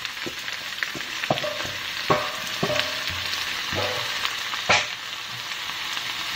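Napa cabbage, with a little of its own water, sizzling in hot oil in a stainless steel frying pan over high heat, being stirred with a wooden spatula. A steady sizzle runs under irregular knocks of the spatula against the pan; several knocks ring briefly, and the sharpest comes about three-quarters of the way in.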